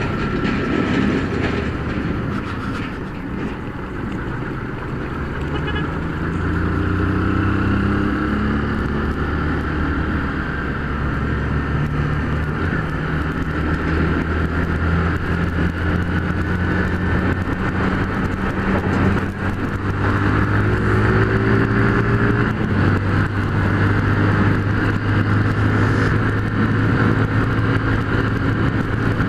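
Motorcycle engine running while riding, its pitch climbing under acceleration and dropping back at gear changes several times, over steady wind and road noise.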